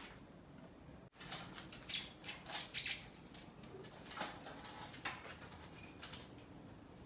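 Light clicks, taps and scrapes of tools and bicycle parts being handled as work on the rear cassette begins, in short irregular bursts.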